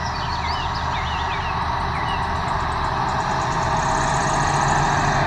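Large farm tractor engine running steadily while pulling a seed drill through the field, growing a little louder over the few seconds.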